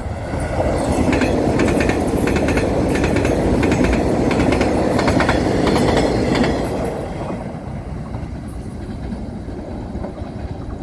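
Taiwan Railways EMU500 electric multiple unit passing at speed, its wheels clicking over the rails in a clickety-clack over a loud rushing noise. The noise fades from about seven seconds in as the train pulls away.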